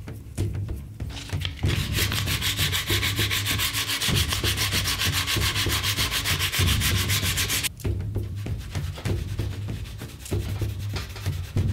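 Sandpaper rubbed by hand over filler on a wooden shield handle, in fast back-and-forth strokes. It starts about a second in and stops abruptly near eight seconds, followed by lighter, intermittent rubbing.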